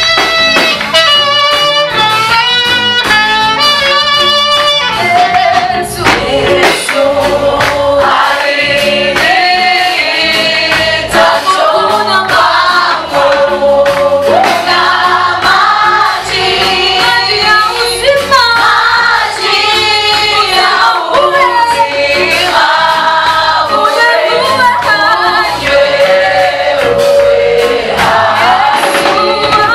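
A gospel choir singing a Swahili song with band accompaniment. For the first five seconds or so an instrumental lead line plays alone over the band, then the choir's voices come in.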